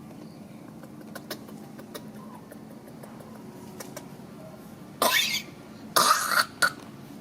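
A mother monkey with a cough coughing three times in quick succession about five seconds in: two harsh coughs, the second the longest, then a short last one.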